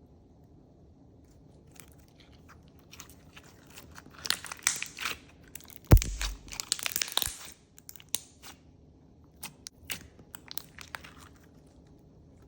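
Stiff clear slime mixed with fishbowl beads and pearls being squeezed and stretched by hand: the beads crunch and click. There is one sharp pop about halfway through, then scattered clicks.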